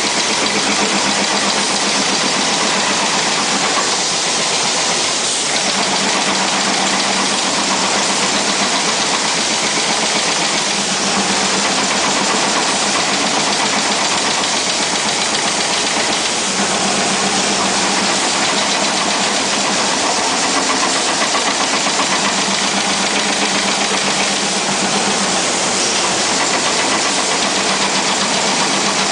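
Fan-guard middle-ring welding machine running: a steady, dense mechanical noise, with a low hum that comes and goes every few seconds as the guard rotates and welds.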